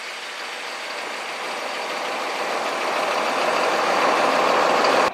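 Chopped corn silage pouring out of a tipping dump wagon into a semi trailer, a rushing noise that grows steadily louder as the load slides, over a running tractor engine. It cuts off suddenly at the end.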